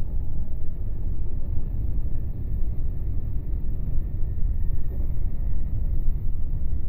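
Steady low rumble of a Meitetsu electric train running at speed, heard from inside the passenger car.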